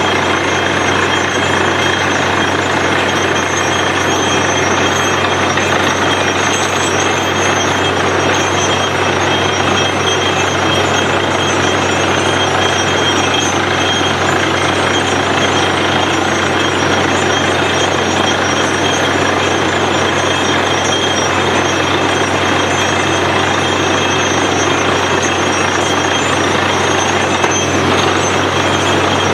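Bore-well drilling machine running steadily: a loud, unbroken mechanical din over a constant low hum.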